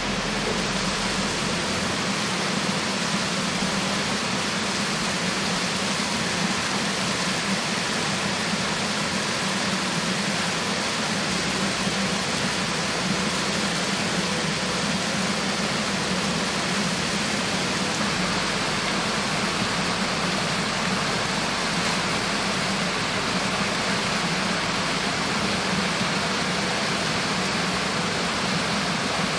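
Steady, even rushing noise of water, without a break or change.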